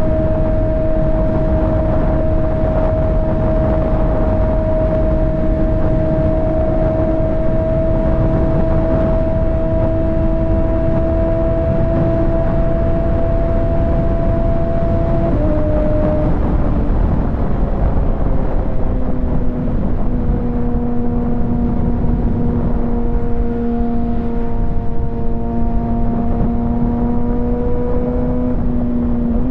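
Kawasaki ZX-6R 636 inline-four engine and exhaust at highway speed. The engine note climbs slowly, drops sharply about halfway, glides lower and then holds a steady lower note, over a constant rush of wind and road noise.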